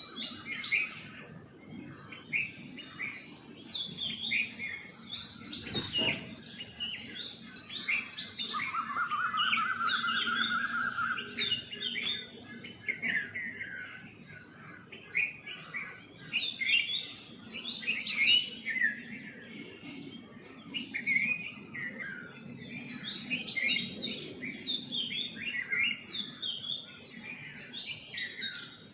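Several small birds chirping and calling over one another in quick, high notes. A fast, even trill of lower notes sounds for about three seconds around the middle. There is a single knock about six seconds in.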